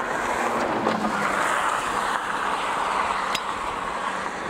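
Steady rushing noise of wind and a vehicle running, with a faint low hum underneath and a single sharp click about three seconds in.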